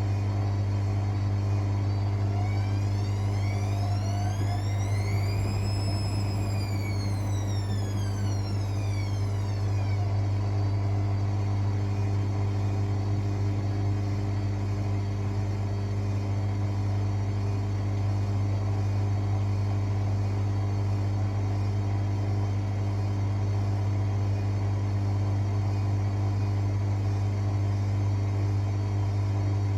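Hotpoint WML540 washing machine running a fast 60° wash: a steady low hum, with the motor's whine rising and falling once over several seconds near the start as the drum turns.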